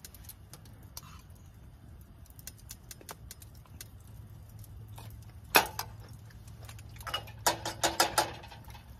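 Campfire crackling with scattered small pops. A sharper click comes a little past halfway, and a brief run of clinks and knocks follows near the end.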